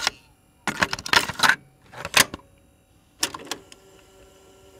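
Three short clusters of clattering clicks and rustles, about a second apart, then a faint steady hum.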